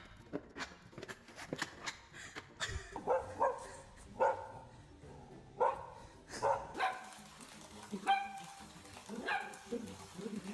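Dog giving a series of short barks and yips, about eight, spaced irregularly, after a couple of seconds of faint clicking.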